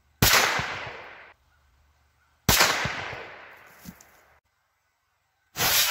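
Three rifle shots from a 6.5 Grendel, each a sudden report that rolls off over a second or more; the first two are cut off short.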